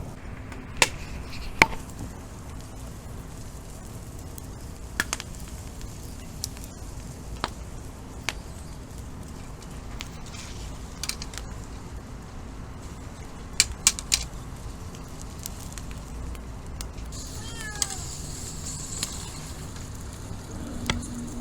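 Scattered sharp clicks and knocks, three in quick succession about fourteen seconds in, and a short cat meow falling in pitch about eighteen seconds in.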